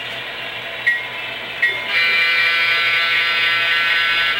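Sound-equipped model of a Seaboard Air Line Baldwin Centipede diesel locomotive, its engine sound playing through a small onboard speaker, with a couple of sharp clicks. About two seconds in, its horn sounds one steady blast lasting nearly three seconds.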